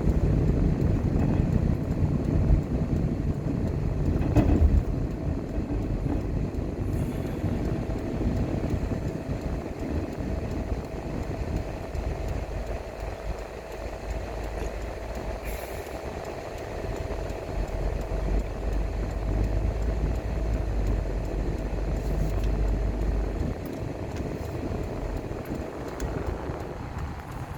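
A car driving along a road: a steady low rumble of engine and tyre noise, with a faint constant hum.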